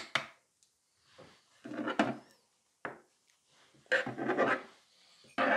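Objects handled on a tabletop: a nail tip on its holder stand and tools being set down, giving four short knocks and scrapes about a second or two apart.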